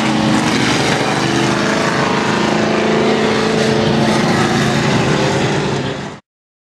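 Several racing stock car engines running hard on the track, loud and steady, with more than one engine pitch heard at once. The sound cuts off abruptly about six seconds in.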